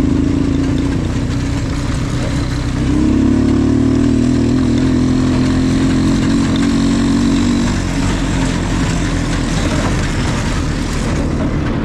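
Motorcycle engine running under way. It gets louder from about three seconds in and eases back at about eight seconds.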